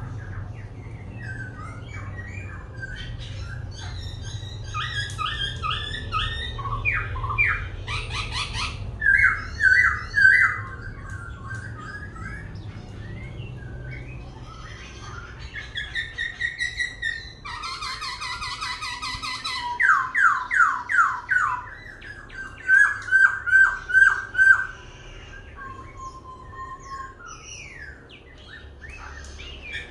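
Laughingthrush (khướu) singing a long, varied song that keeps switching from one phrase to the next: whistled notes, fast trills and runs of rapidly repeated notes. The loudest runs come in the middle and in the second half.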